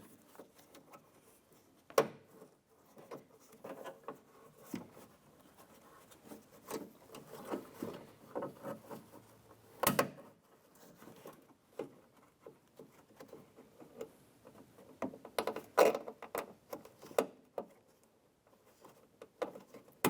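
Hands working inside a car door, fitting plastic clips onto the interior door handle cable: scattered clicks and rubbing, with sharper clicks about 2, 10 and 16 seconds in.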